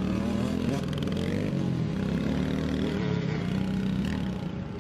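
Small youth dirt bike engines running as two bikes ride off, a steady engine note that rises and falls slightly in pitch.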